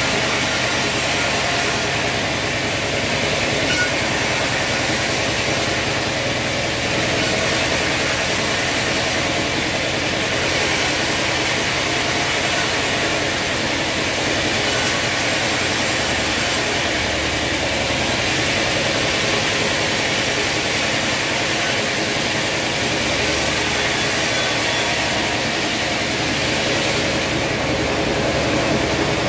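A sawmill band saw runs steadily with a constant low machine hum while old wooden boards are fed through its blade. The cutting noise grows louder in stretches of a second or two, several times, as boards pass through.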